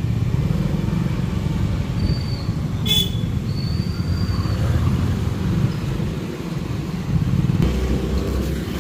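Steady low rumble of a motorbike ride in traffic, wind buffeting the microphone over the engine. A few short, high-pitched horn beeps come about two to four and a half seconds in.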